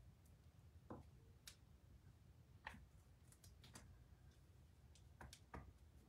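Near silence broken by a scattering of faint clicks and taps from alphabet stamps being picked up, inked on an ink pad and pressed onto a canvas.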